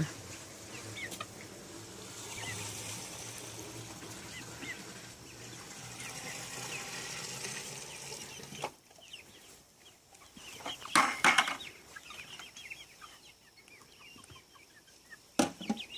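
A flock of young hens clucking and chirping, with louder squawks about two-thirds of the way in and again near the end. A low steady hum sits under the first half and stops abruptly.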